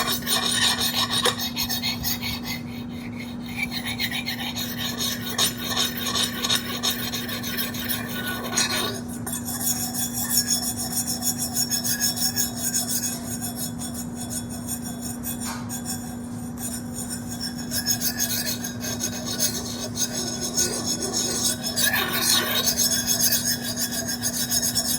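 Continuous rasping, scraping sound of something rubbed against a surface, over a steady low hum. Its texture shifts about nine seconds in and again near the end.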